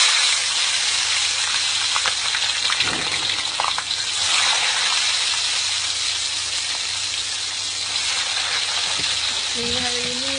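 Food frying in hot oil, a loud, steady sizzle. A voice starts near the end.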